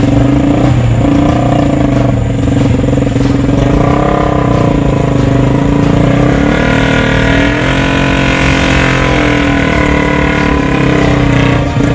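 Three-wheeled motorcycle with a Yamaha MX engine running under way, its engine note rising and falling in pitch around the middle of the stretch.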